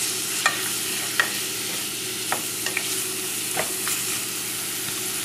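Diced vegetables (carrots, peppers, shallots, garlic) sweating in oil in a stainless steel pot, with a steady sizzle, while a wooden spoon stirs them and taps against the pot about six times.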